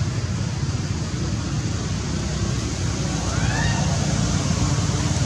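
Steady, loud outdoor rushing noise with a low rumble and hiss. About three seconds in, one short squeal rises and then falls in pitch.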